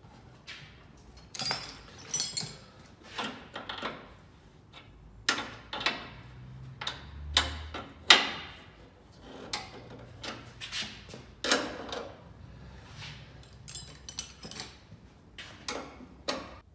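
Irregular clanks, clicks and knocks of metal bars and hand tools being handled and fitted to a vehicle's front end, with the loudest knock about eight seconds in.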